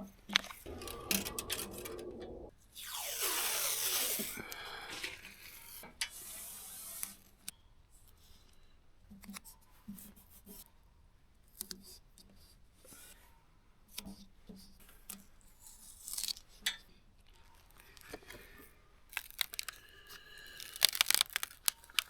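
Vinyl decal sheet being peeled apart, with one long tearing rip about three seconds in, followed by scattered light taps and crinkles of the sheet being handled and denser crackling near the end.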